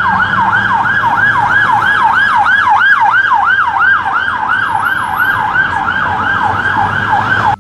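Police van siren on a fast yelp, its pitch sweeping rapidly up and down about three times a second, loud and continuous, with traffic rumbling underneath.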